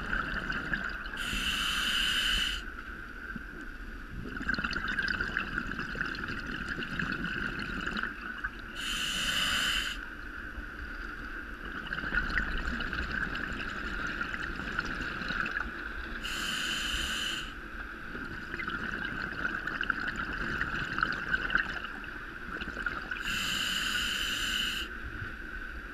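Underwater, a diver's exhaled breath bubbling out in four bursts about seven seconds apart, each lasting a second or so, over a steady hiss heard through the camera's waterproof housing.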